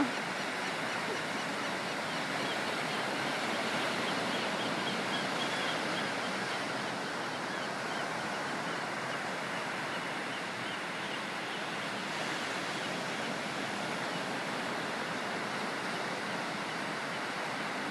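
Sea surf washing steadily, an even rushing noise with no distinct breaks.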